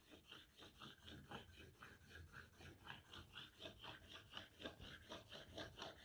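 A marker laid on its side and rubbed quickly back and forth across a planed board, to show where planer snipe has left the surface low. It makes a faint series of short scrapes, about three or four a second, growing louder toward the end.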